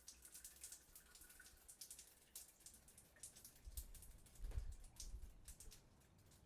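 Faint, irregular water drips and small ticks after a shower has been turned off, with a soft low thump about four and a half seconds in.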